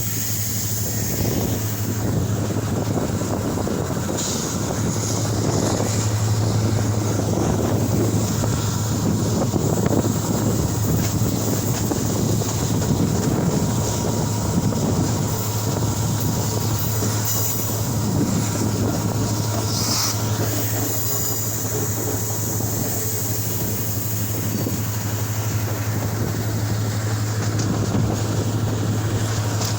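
Steady rumble of a moving vehicle, with a constant low hum and a noisy wash of travel noise that does not change.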